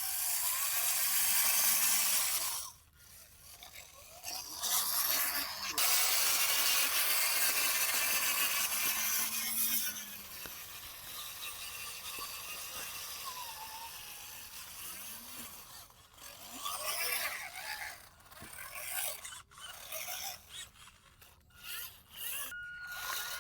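Toy RC bulldozer's small electric gear motors whirring and scraping as it works in the mud. It is loud in two stretches, then quieter and stop-start.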